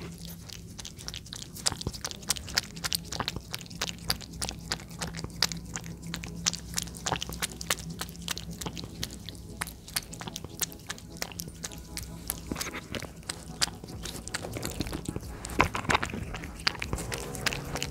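Domestic cat eating wet food chunks in sauce from a plate, close up: a dense, irregular run of wet chewing and smacking clicks.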